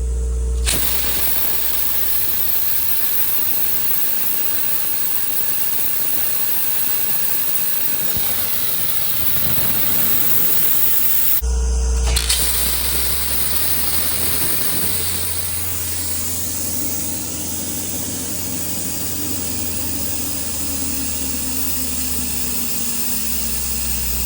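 Abrasive blast nozzle (a number 4 SiALON nozzle) blasting at 115 PSI with a loud, steady hiss. The blast starts about a second in, breaks off briefly about halfway through, then resumes.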